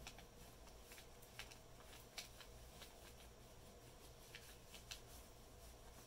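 Faint scratching of a wax crayon rubbed up and down over paper laid on tree bark, with scattered small clicks, over a low steady hum.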